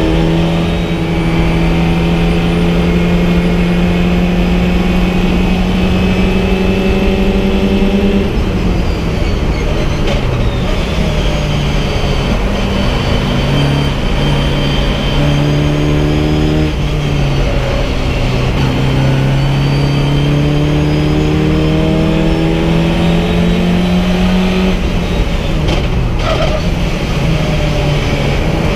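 VW Fun Cup race car engine heard from inside the cockpit under racing load. Its pitch climbs slowly and drops sharply about eight seconds in and again about twenty-five seconds in, over a steady rushing noise.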